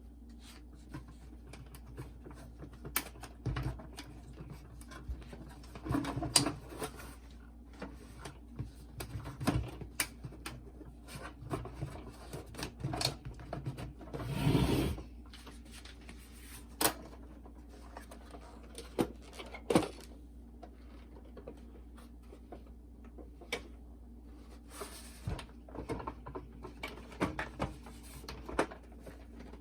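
Scattered clicks, taps and rustles of hands and tools handling the plastic parts of a Sony CFD-454 boombox as it is fitted back together, with a longer rustling scrape about halfway through.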